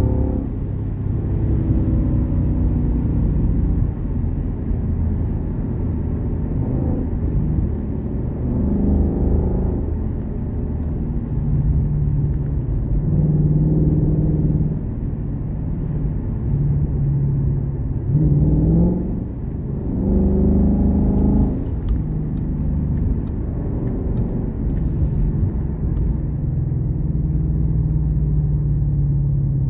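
Ford Mustang's engine and exhaust heard from inside the cabin, pulling up in pitch through the gears in two spells, about a quarter of the way in and again around two-thirds, and running at a steady drone while cruising in between and near the end.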